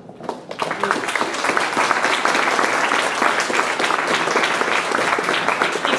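Audience applauding, starting about half a second in after a speech ends; a woman's voice begins speaking over the clapping near the end.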